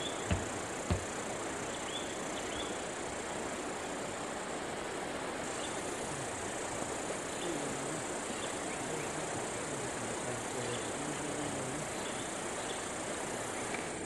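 Steady high-pitched drone of a chorus of insects, which grows louder about five seconds in. A couple of sharp knocks come in the first second, and a faint low hum comes and goes in the second half.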